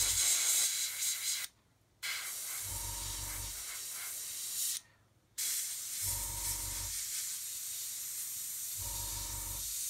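Airbrush spraying paint: a steady hiss of air that stops twice for about half a second where the trigger is let off. A low hum cuts in briefly three times.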